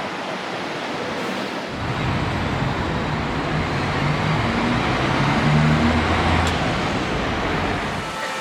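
City street traffic noise with a motor vehicle passing close: its low engine rumble comes in about two seconds in, grows loudest a little past the middle and fades near the end.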